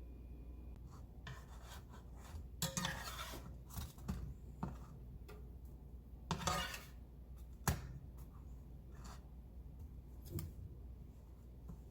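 Objects being handled up close: two short bursts of rubbing or rustling, a sharp click and a few light taps.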